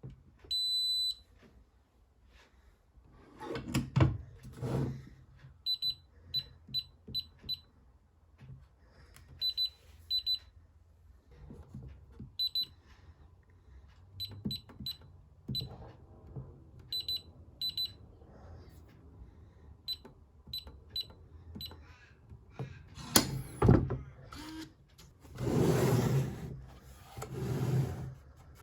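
Blacksmith biometric pistol safe's electronic beeper: one longer beep near the start, then many short, high beeps in quick runs of two to five, typical of keypad buttons being pressed. Knocks and rustling noise from handling the safe come in between, loudest near the end.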